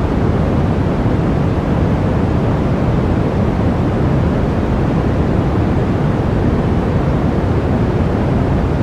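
Blizzard wind: a steady, loud rush of gusting wind with a deep rumble and no breaks.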